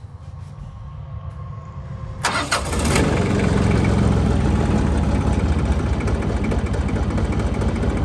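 A Branson tractor's diesel engine cranks, catches about two seconds in, and runs on loudly at low revs. It stumbles and won't rev up, which the owner puts down to a clogged DPF filter.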